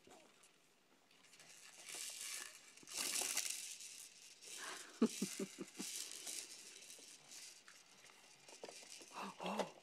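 Plastic toys on a baby's activity jumper rattling and clicking in irregular bursts as the baby handles them.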